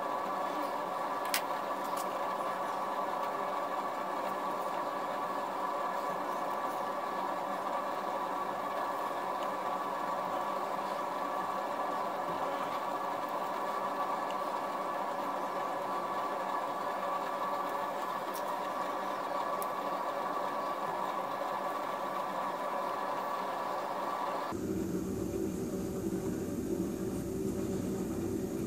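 Steady whirring machine hum that switches abruptly to a lower, rougher hum near the end, with a few faint clicks from a hand chisel paring wood.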